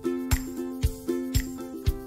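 Background music with a steady beat, about two beats a second, under sustained melodic notes.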